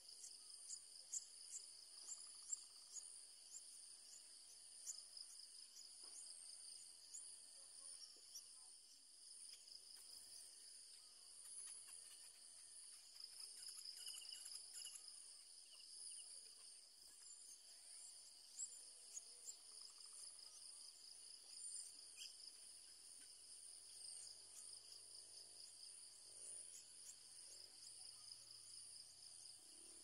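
Faint, steady high-pitched insect chorus with a rapid pulsing buzz, and a few short sharp ticks in the first three seconds.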